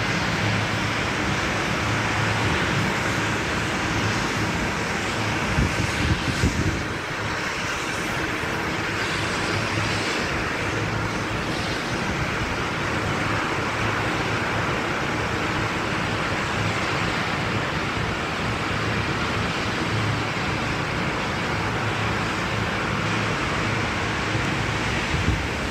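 Steady wind rushing over the microphone, with stronger gusts buffeting it about six seconds in and again near the end.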